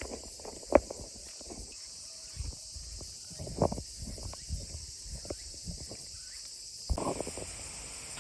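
Irregular footsteps: a string of light thumps at an uneven pace, over a steady high hiss.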